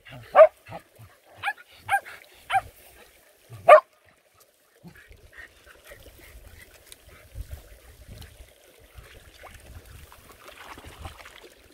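Dog barking, about six sharp barks in the first four seconds, then stopping.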